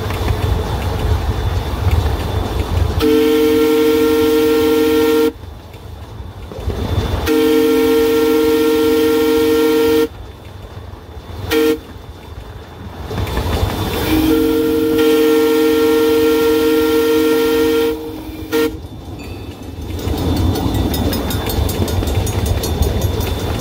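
Miniature train locomotive sounding its chime horn while it runs along the track: two long blasts, a short toot, another long blast and a final short toot, the long-long-short-long pattern used for a grade crossing. A steady low rumble of the running train and its wheels on the rails continues between the blasts.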